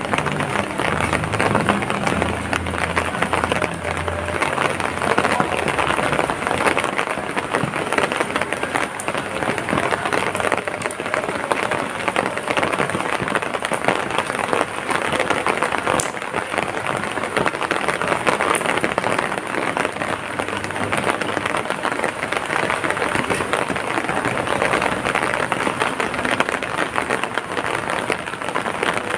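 Heavy rain falling steadily, a dense even hiss of drops on surfaces. A low rumble sits under it for the first several seconds, then fades.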